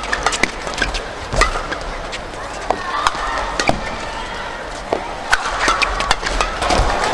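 Badminton court sounds: irregular sharp racket-on-shuttlecock hits and short shoe squeaks over a steady hiss of hall noise.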